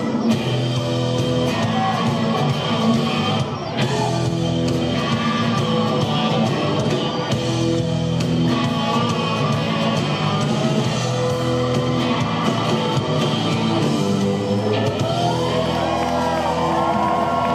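Live blues-rock band playing an instrumental passage on electric bass, electric guitar and drums, with wavering high notes near the end.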